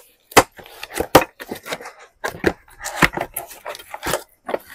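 A cardboard carton holding a non-stick dosa tawa being handled and opened, with a run of sharp knocks and scrapes from the cardboard and the pan inside, a few of them loud.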